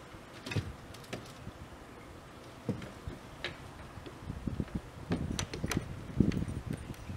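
A wooden shed door being swung shut and its metal latch worked: a string of irregular knocks and bumps with sharp metallic clicks, thickest and loudest near the end.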